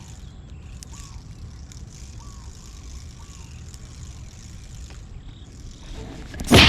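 Low steady outdoor rumble with faint repeating chirps, then near the end one sudden loud splash at the water's surface: a snakehead striking the angler's lure.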